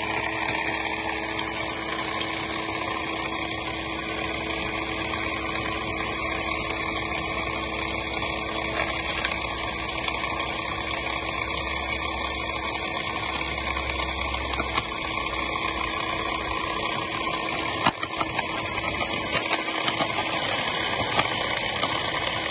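Scale-model stone crusher running steadily, its electric motor and belt-driven toothed crushing rollers working through gravel. A few sharp cracks come in the last few seconds.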